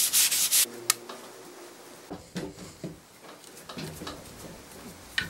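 Quick strokes of sandpaper rubbed by hand over a small wooden repair piece, stopping about half a second in. Then a sharp click and scattered light knocks and clicks as metal bar clamps are set on the piece and screwed tight.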